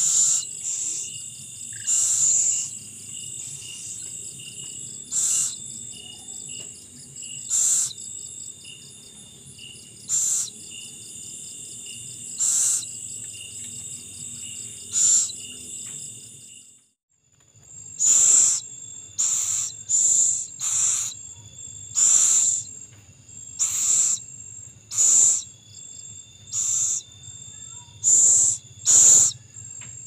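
Downy owlet giving short, raspy hissing begging calls, about one every two to three seconds at first and then about one a second in the second half. Crickets and other insects ring steadily underneath.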